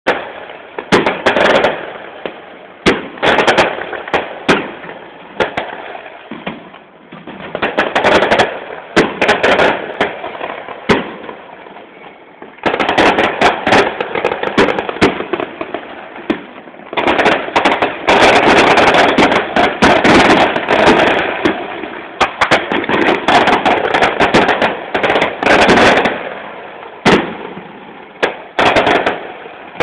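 A New Year's fireworks display going off: many sharp bangs and pops, building about halfway through into long stretches of rapid, almost continuous reports and crackling.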